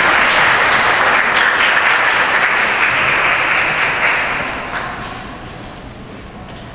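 Audience applauding in a large hall, loud at first and dying away about five seconds in.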